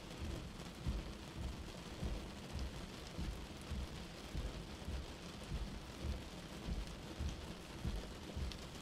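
Windshield wipers running on high speed through a rainstorm: a low thump about once a second over the steady hiss of rain on the glass.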